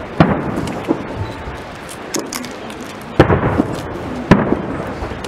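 Aerial firework shells bursting: a string of sharp bangs with rolling echoes, the loudest just after the start and about three and four seconds in.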